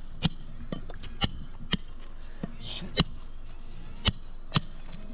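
Hammer striking metal while artificial turf edges are worked in: a run of sharp, uneven clinks, about six blows in five seconds, the loudest three in the second half.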